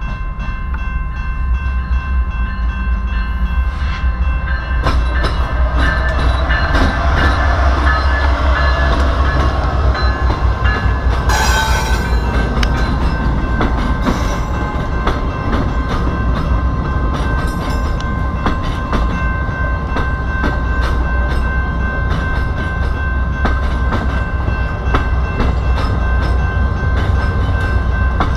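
VIA Rail passenger train led by a GE P42DC diesel locomotive passing close by: a loud rumble as the locomotive goes by in the first half, then the passenger cars rolling past with rhythmic wheel clicks over the rail joints. A level-crossing warning bell rings steadily throughout.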